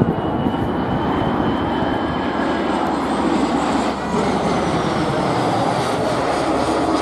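Jet noise from a Dassault-Dornier Alpha Jet's twin Larzac turbofans flying a display: a loud, steady rushing with a high engine whine. The whine slides down in pitch over the second half.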